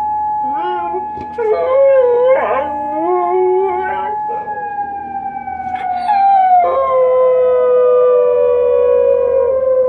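A tsunami warning siren holds a steady tone, then slowly falls in pitch from about four and a half seconds in as it winds down. A dog howls along with it in wavering, rising and falling howls.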